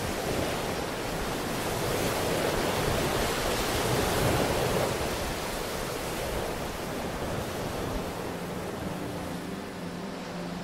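Ocean surf in a relaxation soundtrack: a wave swells to its loudest a few seconds in and then eases back. Soft held music notes come in faintly near the end.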